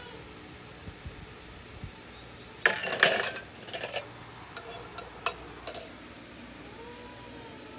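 Steel dishes and utensils clinking and clattering as they are handled in a wire dish rack. A quick run of knocks comes about three seconds in, followed by a few lighter single clinks.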